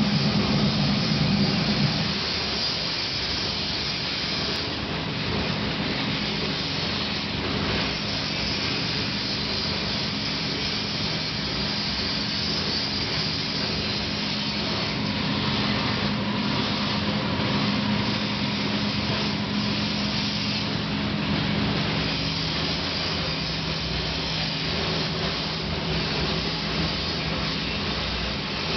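Tilting melting furnace for gold and silver running: a steady rushing noise with a low hum, a little louder for the first couple of seconds.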